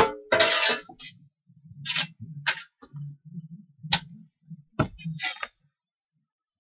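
Wood being handled on a wooden workbench: a knock as a wooden block is set down, then sliding and scraping. A sharp click comes about four seconds in and a dull thud just before five.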